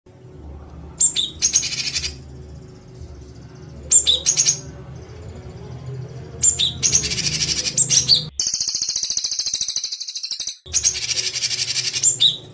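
A songbird's harsh, rapid-fire call phrases, repeated five times with short gaps. The longest and loudest is a high, sustained buzzing rattle about two-thirds of the way through.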